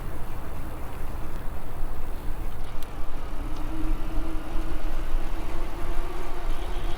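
Electric motor on a moving e-bike, a steady whine that rises slightly in pitch, under low rumbling wind noise on a foam-covered lapel microphone.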